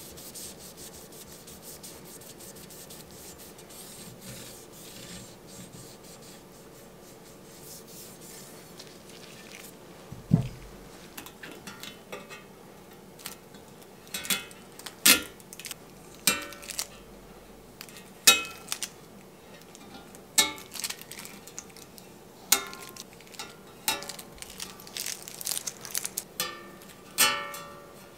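Steady rubbing at first, then from about ten seconds in a run of sharp scrapes and clicks: a hobby knife scraping and lifting a decal off a steel bicycle frame tube.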